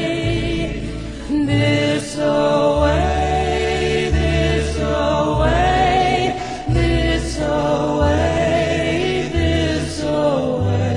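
Background music: sung voices with a wavering, choir-like sound over a bass line that moves to a new note every second or so.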